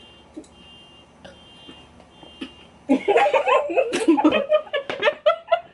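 A group of young women laughing hard together, starting suddenly about three seconds in after a hushed stretch and stopping just before the end.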